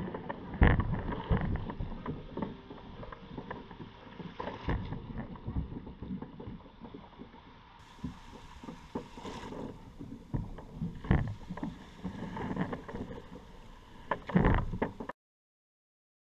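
Water sloshing and splashing against a plastic sit-on-top kayak's hull, broken by irregular louder splashes and knocks. The sound cuts off suddenly near the end.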